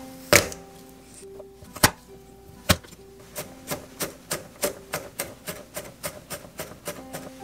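Cleaver blade knocking on an end-grain wooden cutting board: a few separate hard knocks as garlic cloves are crushed, then from about three seconds in a steady run of chops, about three a second, mincing the garlic.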